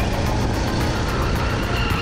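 Go-kart engine running at speed, heard from onboard the kart with steady wind and road noise.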